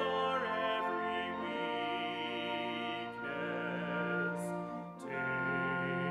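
Live classical-style chamber music from a small trio including flute and cello: slow, sustained notes with vibrato, moving to new notes after a brief dip about five seconds in.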